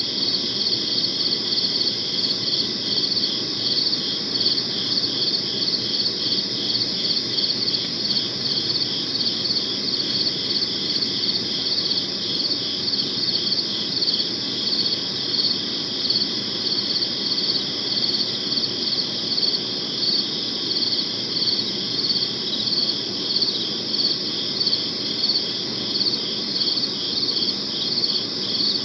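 Crickets chirping continuously in a steady, even rhythm of rapid high-pitched pulses, over a low background hiss.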